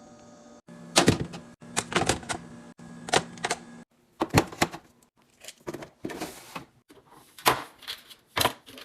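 Clicks, taps and knocks of food containers and packages being handled and set down while a fridge is restocked, at an uneven pace, with the sound cutting off abruptly several times.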